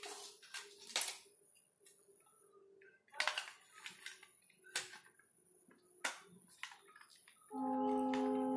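Plastic clicks and knocks from handling an opened Xbox 360 wired controller as its shell is fitted back over the circuit board, with sharp clicks a second or so apart. Near the end a steady humming tone starts and holds, louder than the clicks.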